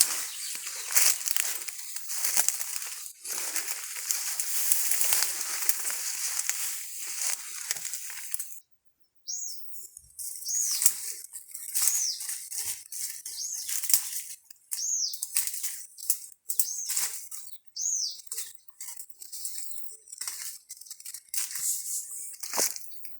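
Dense dry rustling and crackling for about eight seconds, then an abrupt cut. After it comes quieter, scattered rustling with short, high, arching chirps about once a second.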